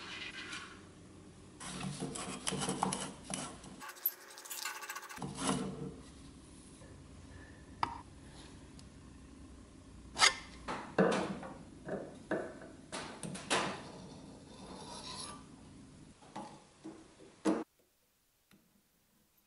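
Rusty cast-iron Craftsman bench grinder being taken apart by hand: metal parts rubbing, scraping and clinking in a string of short separate sounds, the sharpest clicks and taps in the middle, followed by a couple of seconds of near silence near the end.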